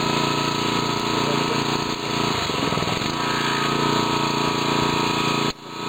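Hydraulic rescue tool's engine-driven power unit running steadily under load while a spreader works on a car's door pillar. It drops out for a moment near the end.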